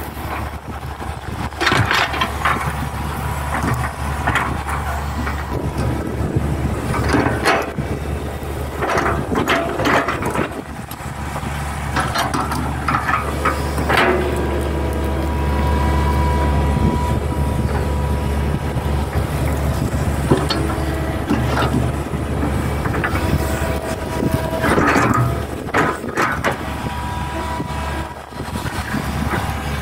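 Hitachi hydraulic excavator's diesel engine running steadily under working load, with irregular knocks, cracks and scrapes as the bucket digs through soil and fallen oil palm debris. A thin steady whine is heard for a few seconds midway.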